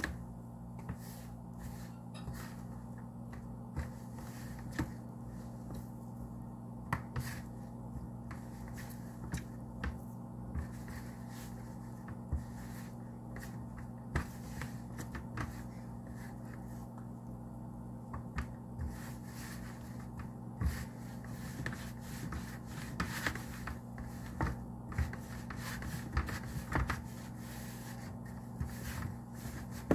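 Hands mixing flour and water into a sticky dough in a plastic tray: rubbing and scraping of dough and flour against the plastic, with scattered light taps, busier near the end. A steady low hum runs underneath.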